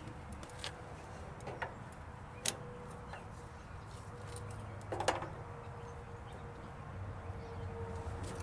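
A few scattered sharp clicks and light knocks, a small cluster of them about five seconds in, over a faint steady hum: tools and parts being handled while working on the lawn tractor, with no engine running.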